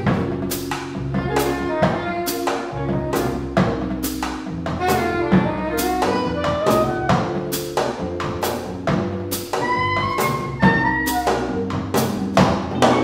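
Small jazz combo playing: a drum kit keeps time with cymbal strokes about twice a second over low upright bass notes, while a keyboard plays a melodic line of short notes.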